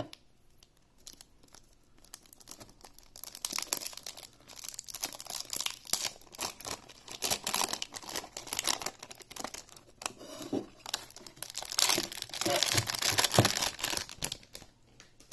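Clear plastic shrink wrap crinkling and tearing as it is peeled off a puzzle cube. Loud from about three seconds in, dying down just before the end.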